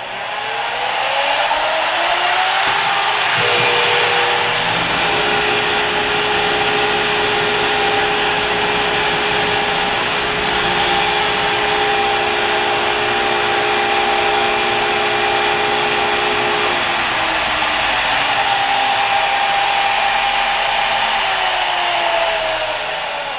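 CNC router spindle spinning up to 24,000 RPM with a rising whine, then running steady while a Datron 20 mm two-flute facing end mill face-cuts an aluminum block. The spindle winds down with a falling whine near the end.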